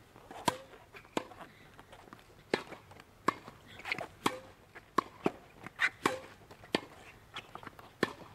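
Tennis rally on a hard court: about a dozen sharp pops as the ball comes off the rackets and bounces on the court, spaced irregularly.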